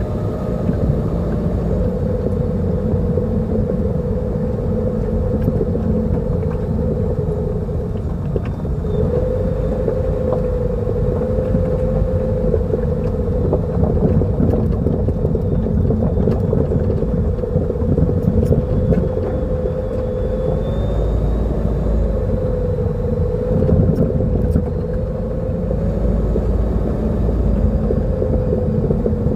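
Lada Vesta NG driving, a steady road rumble with a wavering hum, and occasional light knocks from the SAAZ front shock-absorber struts, the sign of knocking struts.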